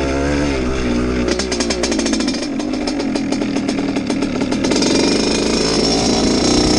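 Kawasaki KX100's single-cylinder two-stroke engine running as the dirt bike is ridden. It goes from a steady note to a rapid popping of about ten pulses a second for a few seconds, then picks up to a steady higher note near the end.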